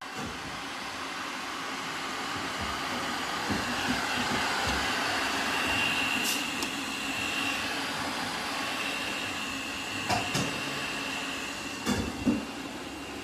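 ILIFE V3s Max robot vacuum cleaner running: a steady suction noise with a high whine that comes and goes, and a few knocks in the last few seconds.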